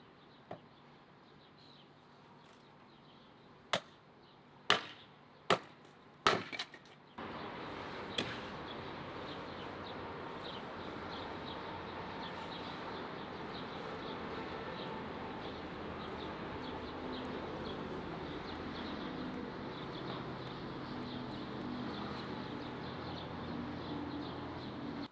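Several sharp strikes of a hatchet splitting firewood, a second or so apart. About seven seconds in, a steady outdoor background hiss with faint chirps takes over.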